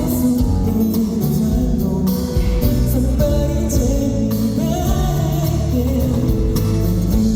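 A male singer singing live over band or backing-track accompaniment.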